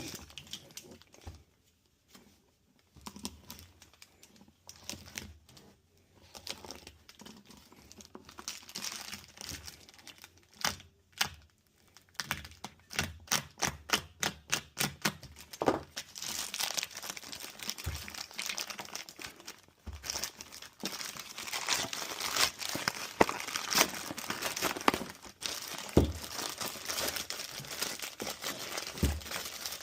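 A package being opened by hand: packaging crinkling and tearing. It is sparse at first, then comes a run of quick sharp rips about eleven to fifteen seconds in, and nearly continuous crinkling through the second half.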